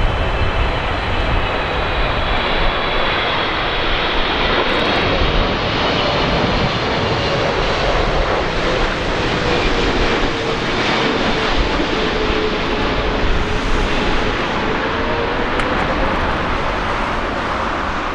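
Jet airliner's engines passing low overhead on landing approach: a loud, steady jet noise with a whine that sinks slowly in pitch as the aircraft goes by, fading near the end.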